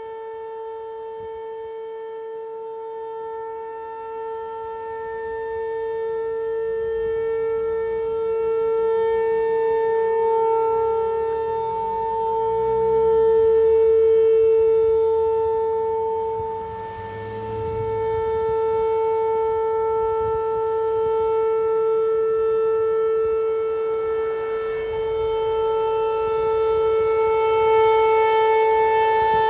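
American Signal T-135 outdoor warning siren sounding its monthly test: a steady single-pitch wail whose loudness swells and fades as the rotating siren head sweeps past, loudest about halfway through and again near the end.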